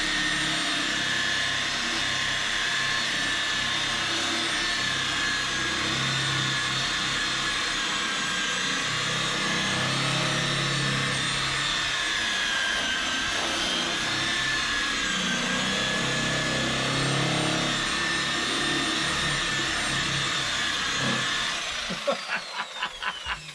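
Corded electric rotary polisher running steadily with a motor whine that wavers slightly in pitch as its pad buffs cream cleanser into faded vehicle paint. Near the end it is switched off and winds down with a falling whine.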